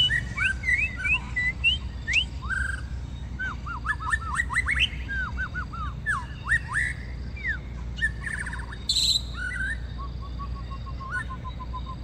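White-rumped shama (murai batu) singing: quick, varied whistled phrases of rising and falling notes. Near the end comes a fast, even run of short notes at one pitch, about four a second.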